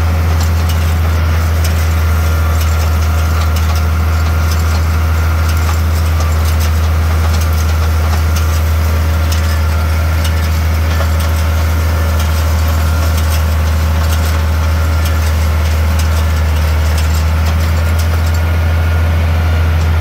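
Tractor engine running steadily at a constant speed with a loud, even low drone while pulling a side-delivery hay rake, with light clicking and rattling from the rake.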